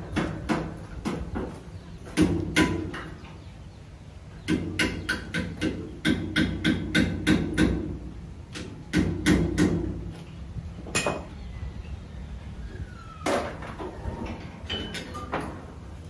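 Hammering: runs of quick, evenly spaced blows, about two or three a second, with pauses between the runs and a few single harder knocks later on.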